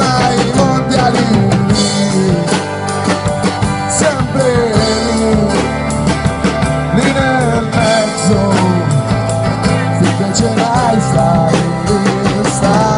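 Rock band playing live, with drums, bass and guitars, and a melody line that bends up and down over a steady, loud backing.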